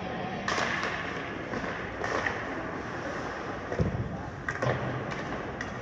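Ice hockey play on a rink: skate blades scraping the ice, with several sharp knocks of sticks and puck over a background of arena noise.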